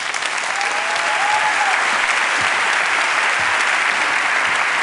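Audience applauding, building up over the first second and then steady.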